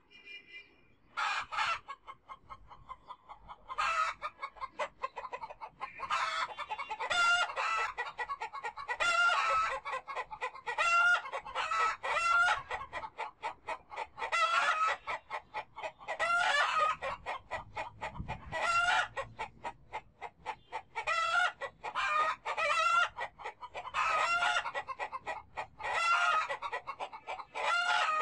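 Domestic chickens calling over and over, a dense run of clucks with some crowing. The calls start about a second in and then go on with hardly a break.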